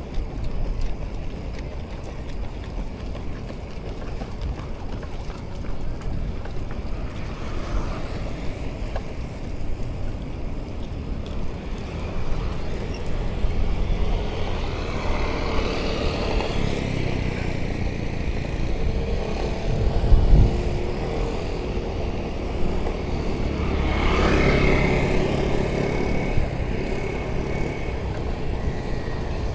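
Street traffic: a steady road rumble with vehicles passing close by, the two loudest passes near the middle and near the end, each with a pitched engine note. A brief low thump about two-thirds of the way through.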